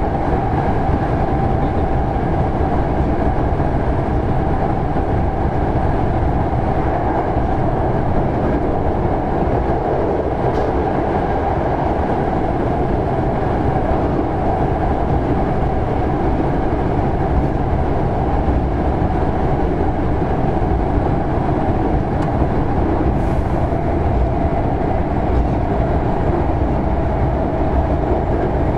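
Hankyu 6300 series electric train (Kyo-train) running at speed, heard from inside a passenger car: a steady rumble of wheels on rail and running gear, with a steady whine over it.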